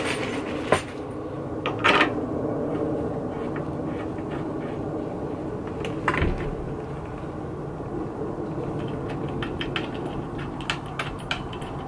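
Hand tools and metal hardware being worked on a motorcycle's fork top clamp: a few sharp metal clicks and knocks, then a run of light ticks near the end, over a steady background hum.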